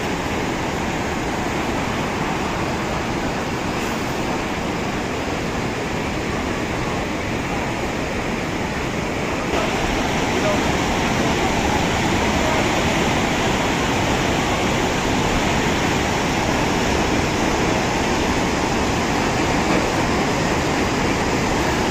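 Continuous rushing of a river in flood after a cloudburst, an even noise with no breaks; about nine and a half seconds in it steps up slightly louder.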